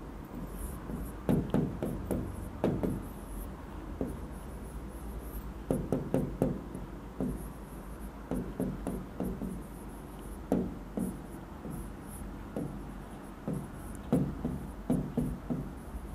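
Writing on the glass of an interactive touchscreen whiteboard: irregular clusters of short taps and scrapes a few seconds apart, over a low steady hum.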